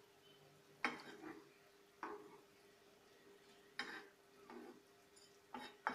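A flat metal spatula knocks and scrapes against a non-stick frying pan as mackerel pieces are turned in thick mustard gravy: four sharp knocks with softer scrapes between them, over a faint steady hum.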